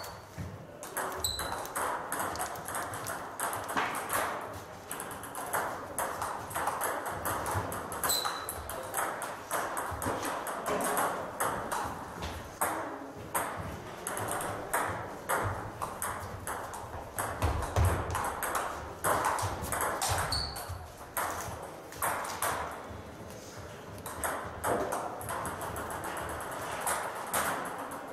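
Table tennis balls clicking off bats and tabletops in rallies on two tables at once, an irregular run of sharp knocks in a hall.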